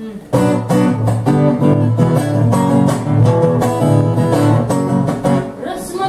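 Acoustic guitar strummed in steady chords with a bass guitar playing along underneath: the instrumental intro of a song, starting a moment in.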